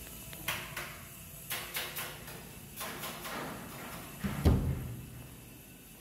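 A series of knocks and clatters, with a heavy low thud about four and a half seconds in that is the loudest.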